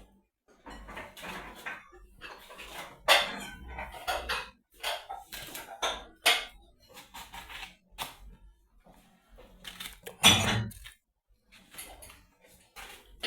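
Irregular knocks and clinks of kitchen utensils and dishes being handled, with a louder clatter about ten seconds in.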